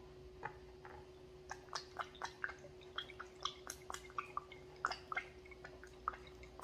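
Brown sauce squeezed from an upside-down plastic squeeze bottle into a small glass bowl of chopped stuffing, heard as many small irregular drips, squishes and splats.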